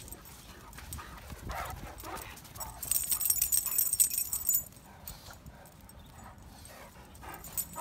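A Great Dane and a pug romping on gravel: paws scuffing and pounding the grit, with metal harness and collar tags jingling. A louder jingling, scuffling stretch comes about three seconds in and lasts a second and a half.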